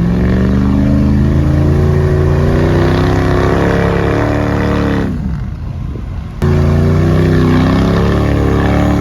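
Off-road truck engine revving hard and held at high revs as it tries to power out of deep snow, falling away about five seconds in. After an abrupt cut it is back at high revs again.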